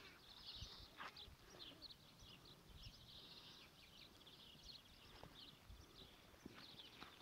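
Faint small-bird chirps repeating throughout, over a quiet outdoor background.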